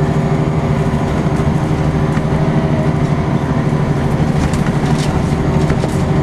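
Interior of a Volvo B10BLE single-deck bus under way: its six-cylinder diesel engine runs at a steady pitch as the bus cruises, with a few light rattles from the cabin fittings.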